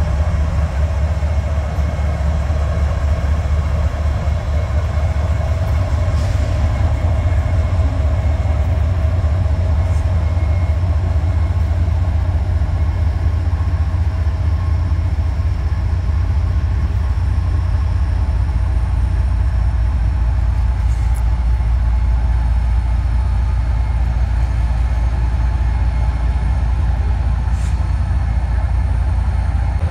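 CSX diesel-electric locomotive running with a steady low rumble as it leads a train of autorack cars slowly past.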